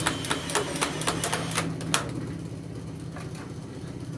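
Red cordless cutter working on the copper refrigerant pipes of an air-conditioner condenser: a rapid, uneven run of sharp clicks for about the first two seconds, then a quieter steady hum.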